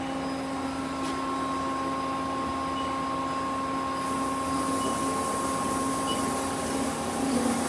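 Mori Seiki SL-35B NC lathe running, a steady machine hum of several held tones, with a hiss in the upper range that grows about halfway through.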